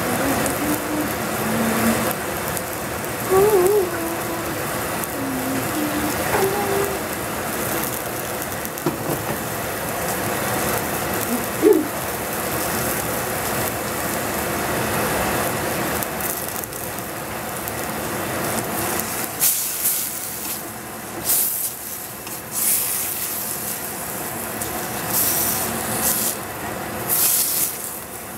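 Chard leaves and stems sizzling in oil in a stainless steel saucepan over a gas flame, a steady hiss. In the last third, short sharp scrapes as a wooden spoon stirs the greens in the pan.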